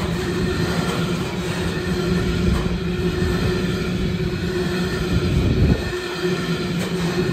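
Container freight train's wagons rolling past close by: a steady rush of steel wheels on rail with a constant hum running through it, and a louder rumble for a moment about five seconds in.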